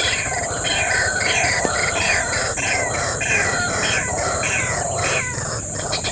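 White-breasted waterhen calling: a quick run of repeated, falling, harsh notes, about two a second, over a steady high hiss.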